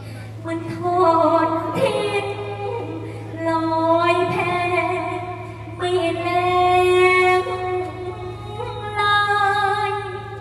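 A woman singing solo in long, held, sliding phrases in the style of Thai sepha recitation, amplified through a PA, with a steady low hum underneath.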